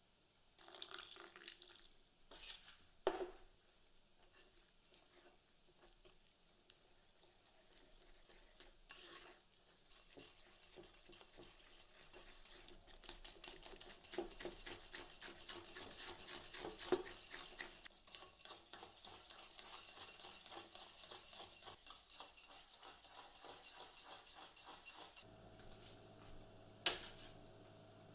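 Gram-flour batter being mixed by hand in a ceramic bowl: a utensil clicking and scraping fast against the bowl, thickest in the middle stretch. A few separate knocks come in the first few seconds, and near the end a steady low hum starts.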